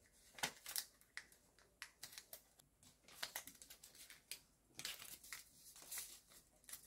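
Sheet of origami paper being folded and creased by hand: faint, irregular rustles and crisp crackles as the paper is pressed and flattened.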